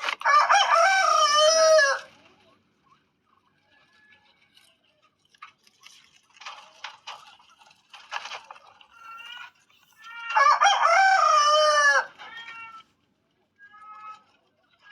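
A rooster crowing twice, each crow about two seconds long and falling at the end, the second about ten seconds after the first. Softer short calls and clicks come in between.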